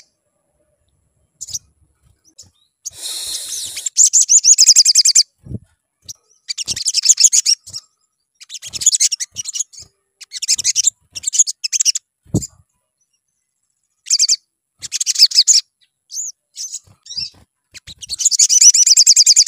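Olive-backed sunbird singing: repeated bursts of rapid, high-pitched twittering trills, each about a second long, with short pauses between them.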